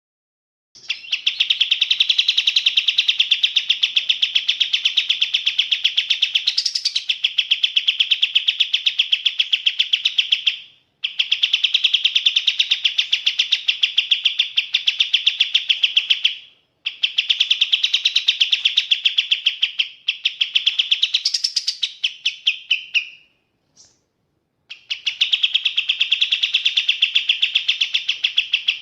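A kapas tembak songbird sings long bouts of fast, rapidly repeated high notes. The song breaks off briefly three times, with a single short note in the last gap.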